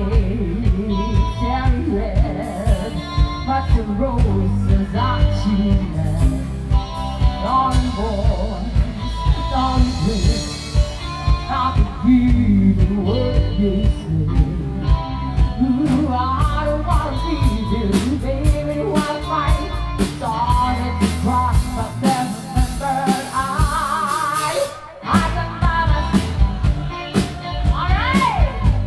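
Live rock band playing with a steady beat, a singer's voice coming and going over it. The bass drops out for a few seconds about three quarters of the way through, then the full band comes back in.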